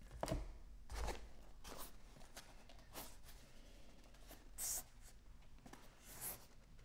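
Handling of small boxes and packaging on a table, including a kraft cardboard box: scattered light taps, knocks and rustles, with a short scraping hiss a little past the middle.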